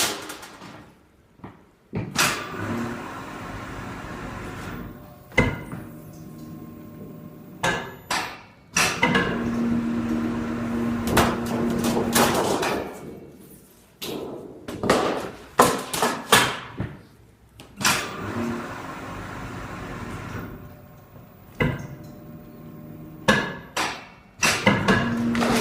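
Sheet metal being worked into roof flashing: repeated metallic knocks and clatters, with stretches where a machine runs with a steady low hum.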